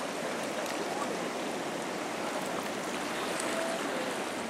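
Steady rush of a flood-swollen river pouring over a weir, a constant churning of high water.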